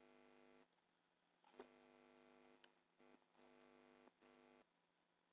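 Near silence: a very faint steady hum that stops and starts a few times, with two soft clicks about one and a half and two and a half seconds in, plausibly computer mouse clicks.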